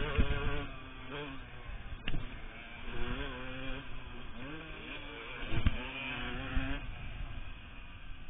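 Yamaha YZ125 two-stroke motocross engine being ridden, loud at first and then more distant, its pitch repeatedly rising and falling as the throttle is worked through the gears.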